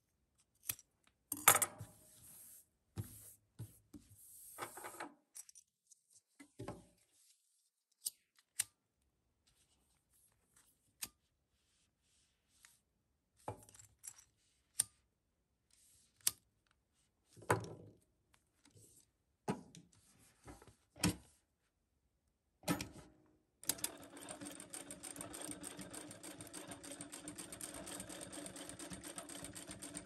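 Scattered short clicks and snips of scissors trimming and handling a vinyl-mesh pouch, then, about 24 seconds in, a Consew 7360R direct-drive industrial lockstitch sewing machine starts and runs steadily, stitching.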